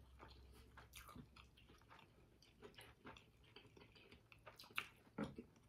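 A person chewing a mouthful of pizza, heard as faint, scattered mouth clicks and smacks, with a couple of slightly louder ones near the end.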